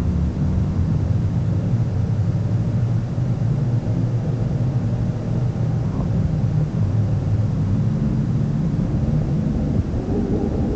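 Speedboat under way at speed: its engine running with a steady low drone, mixed with the rush of water from the hull and wake.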